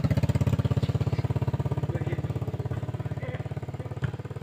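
A small engine running with a rapid, even putter, slowly growing fainter. A single sharp knock comes about four seconds in.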